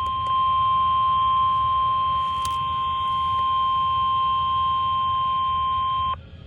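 NOAA Weather Radio warning alarm tone: one continuous steady high beep over a low hum, cutting off abruptly about six seconds in. It is the attention signal that a warning broadcast is about to follow.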